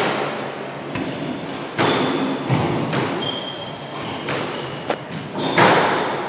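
Squash rally: the rubber ball struck by rackets and smacking off the court walls, a sharp impact every second or so with a hall-like echo, the loudest near the end. Short high squeaks from shoes on the wooden court floor come between the shots.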